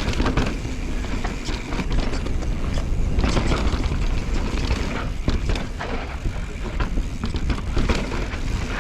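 Pivot Switchblade trail mountain bike ridden fast down a rough dirt trail: a steady rumble of tyres on the ground with frequent knocks and rattles from the bike over bumps.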